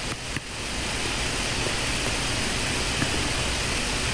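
Steady, even hiss of background noise that dips briefly at the start, with a few faint clicks.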